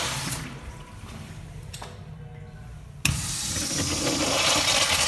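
Sloan high-efficiency urinal flushing: its flushometer valve opens with a sudden click about three seconds in, followed by a steady rush of water through the bowl.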